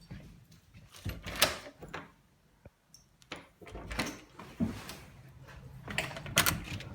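A run of irregular knocks and clunks in a small room, the sharpest about a second and a half in, like a door or fittings being handled.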